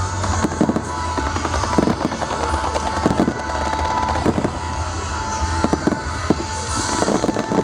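Aerial fireworks bursting in rapid, irregular succession, many bangs within a few seconds, with music playing underneath.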